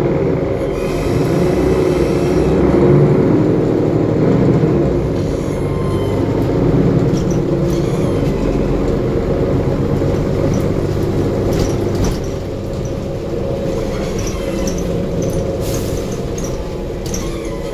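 Mercedes-Benz Conecto G articulated city bus under way, heard from the passenger cabin: a steady drone from its OM457LA six-cylinder diesel and Voith automatic gearbox. Light interior rattles and clicks come in the later part, and the drone drops in level about twelve seconds in.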